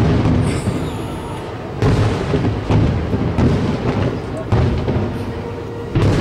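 Aerial firework shells bursting overhead: a string of about five sudden booms at uneven intervals, each dying away over a second or so.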